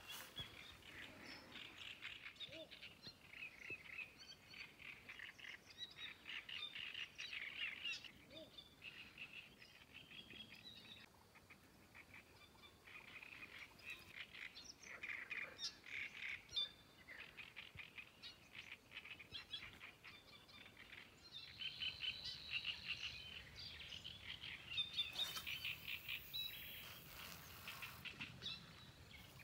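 Faint chorus of small songbirds chirping and trilling rapidly and continuously, with a few seconds of hiss near the end.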